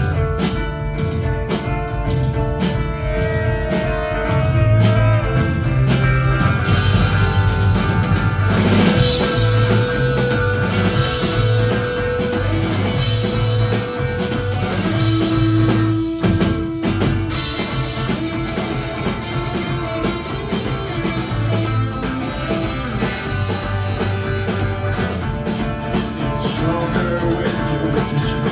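Live rock band playing an instrumental passage: two electric guitars over a fast, steady drum beat, one guitar holding long sustained notes.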